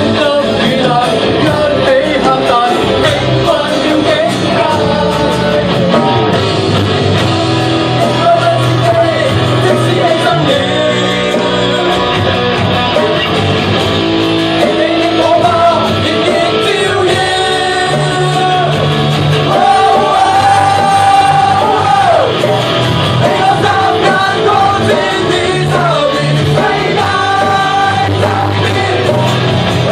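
Live rock band: a man sings lead into a microphone over electric guitars and drums, holding one long high note about two-thirds of the way through, with shouts from people joining in.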